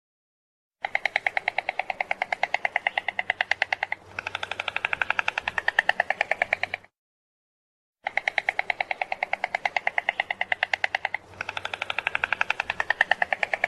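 A stork clattering its bill: long runs of rapid wooden-sounding clacks, about ten a second. There are two bouts, each about six seconds long, with a short dead silence between them.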